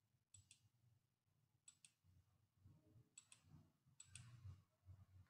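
Faint mouse-button clicks over near silence: four pairs of quick clicks, each pair a press and release, spaced about a second or more apart.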